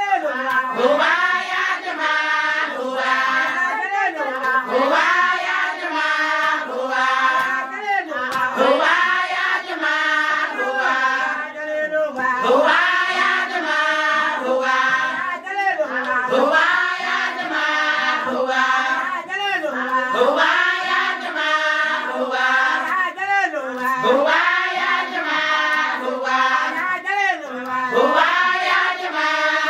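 A group of women singing a short chant over and over together, with handclapping keeping the beat.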